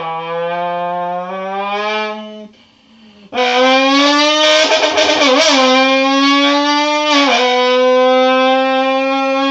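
A person imitating a sports car engine with the mouth: a buzzing held note that slowly rises, a short break, then a longer, louder held note that wavers briefly and dips once before steadying.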